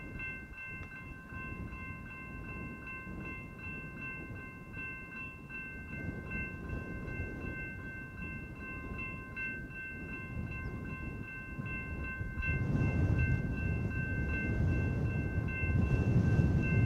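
Railroad grade-crossing warning bell ringing steadily with a regular pulsing ding as the crossing gates come down. About twelve seconds in, the low rumble of an approaching freight train rises beneath it and keeps growing louder.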